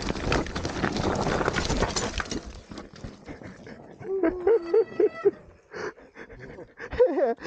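Mountain bike rolling over a rough trail, with a rushing noise and many small clicks that fade out about two and a half seconds in. About four seconds in comes a pitched animal call lasting just over a second, and another short call near the end.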